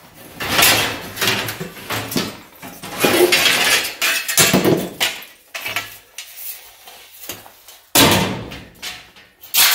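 Scrap steel pipe bends and sheet-metal offcuts clanking and rattling against each other in a wooden box as they are shifted about by hand, in irregular clatters, with a louder clang about eight seconds in.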